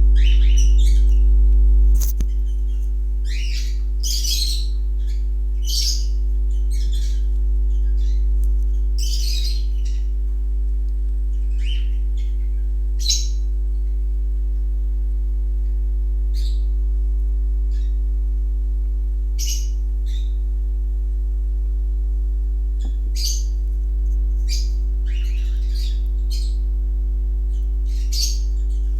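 Steady low electrical hum with a stack of steady overtones, likely mains hum picked up by the recording. Over it, short high chirps and squawks of a bird come every second or few seconds.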